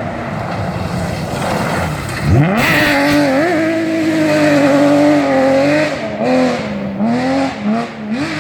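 BMW M3 rally car's engine at full stage pace: revs falling off-throttle, then at about two seconds a sharp rise in revs as the car accelerates hard, held high, with the revs dipping and climbing again several times near the end.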